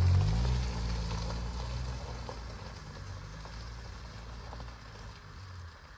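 Massey Ferguson tractor-backhoe engine running steadily with a low hum, growing steadily fainter as the tractor moves off.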